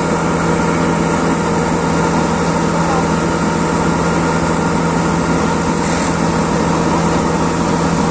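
Combine harvester running steadily while unloading paddy through its auger spout: a loud, even machine drone with a steady low hum.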